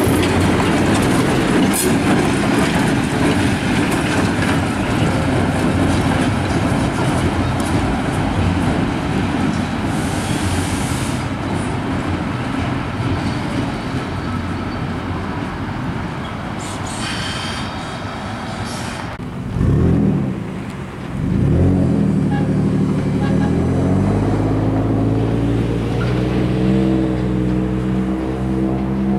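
ALCO RS-1 diesel locomotive and its train passing close by, a dense running rumble. About two-thirds of the way through it gives way to a steadier engine hum that slowly rises in pitch.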